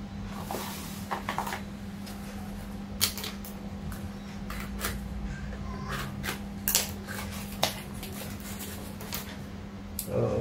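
Packaging being handled and cut open: scattered clicks and taps of small boxes set down on a tile floor, then scissors snipping and paper rustling as a brown-paper parcel is cut open, over a steady low hum.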